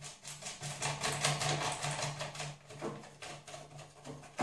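Rapid small plastic clicks and creaks, about eight a second, thinning out after about three seconds, as a thumb screw is wound tight by hand into a Quanum Nova quadcopter's plastic landing-leg mount. A low steady hum runs underneath.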